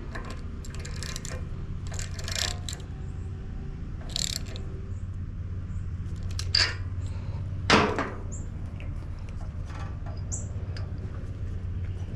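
Scattered clinks, knocks and clatter of tools and metal engine parts being handled, the loudest about eight seconds in, over a steady low hum.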